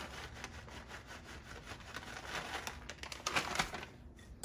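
Plastic bag of shredded cheese crinkling and rustling as the cheese is shaken out into a glass bowl, with a louder burst of crinkling about three seconds in before it dies away.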